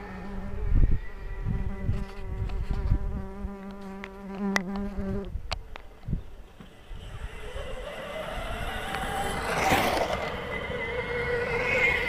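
A wasp buzzing close to the microphone, a steady wingbeat hum for about five seconds. It breaks off, then returns louder, its pitch sliding up and down as it flies around near the camera.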